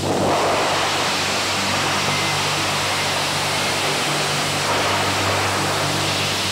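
Homebuilt rocket engine firing: a steady rushing noise of the exhaust that starts suddenly at ignition and holds evenly, with music underneath.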